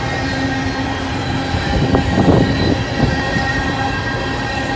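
Freight train of open-top hopper cars rolling past: a steady rumble of steel wheels on rail with thin, steady squealing tones over it. A louder rattle swells and fades a little past two seconds in.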